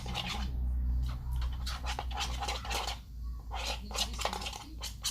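Spoon stirring and scraping sticky slime mixture in a container, in a run of irregular scraping strokes that pause briefly about half a second in and again about three seconds in.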